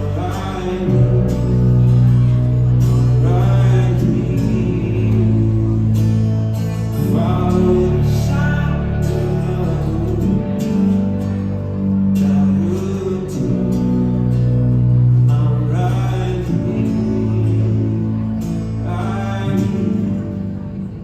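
Live band music with no sung words: held low bass and keyboard chords that change every few seconds, with guitar and melodic lines over them.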